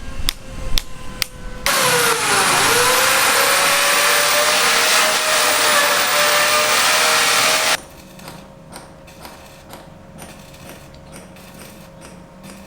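A few sharp hammer knocks, then a power tool running under load for about six seconds: a loud hissing whine whose pitch sags as it bites and then climbs back, before cutting off abruptly. Faint ticking and tapping follow.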